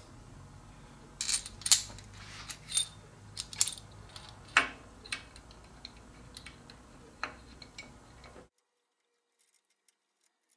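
Light metal clinks and taps, with a few louder knocks, as machined collet-closer parts are handled and fitted onto a lathe spindle, over a faint low hum. The sound cuts off abruptly near the end.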